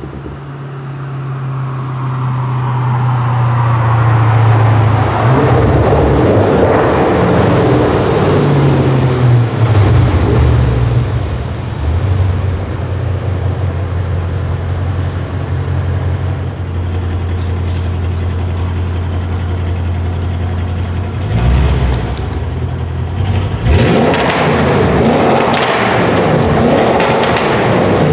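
Audi RS6 Avant C7's twin-turbo 4.0 V8 running through a Milltek exhaust: a steady low engine note that grows louder over the first few seconds and shifts in pitch, settles into a steady drone, then gives a run of short, sharp bursts near the end.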